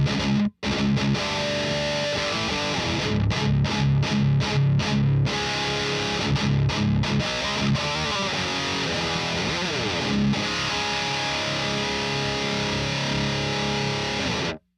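Distorted electric guitar, a Guerrilla Guitars Shinobi played through a Fortin Hexdrive overdrive pedal. It plays a chugging riff with sharp stops, then a chord left to ring for about four seconds before it cuts off suddenly.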